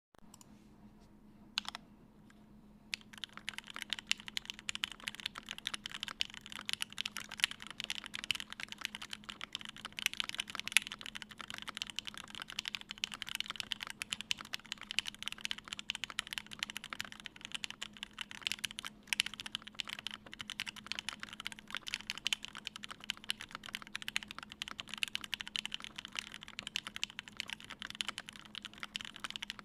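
Typing on a GHS.RAR mechanical keyboard with lubed and filmed Gateron Ink switches in an aluminium plate and GMK doubleshot keycaps. After a single key press, fast continuous typing starts about three seconds in.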